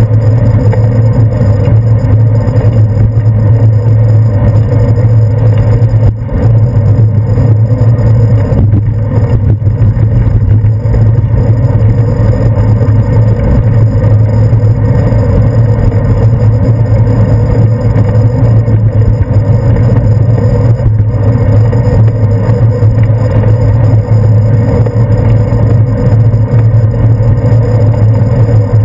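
Loud, steady low rumble of a bicycle ride, picked up by a handlebar-mounted GoPro Hero 2 camera; it dips briefly about six seconds in.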